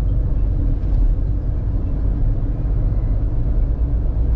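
Steady low road and engine rumble inside a motorhome's cab while it drives along a highway.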